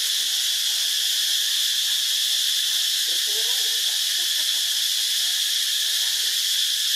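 Steady high-pitched drone of a forest insect chorus, with no change in level throughout. A faint voice-like call can be heard briefly about three seconds in.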